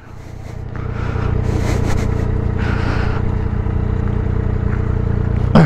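Motorcycle engine running steadily at low revs while the bike moves slowly on a gravel road, its level building up over the first second.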